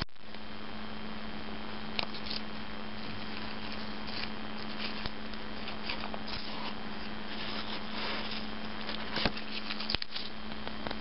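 Hands handling painter's tape wrapped around an adjustable pushrod length checker: soft rustling and scraping, with a few light clicks near the end, over a steady low hum.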